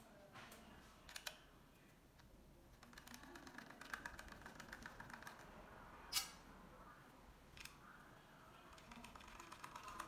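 Faint handling noise of a smart door lock's handle panel and its wiring: light rattling and small ticks, with a few sharper clicks, the loudest about six seconds in.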